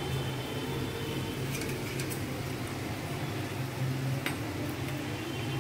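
A steady low hum, with a few faint short clicks about two seconds in and again past four seconds.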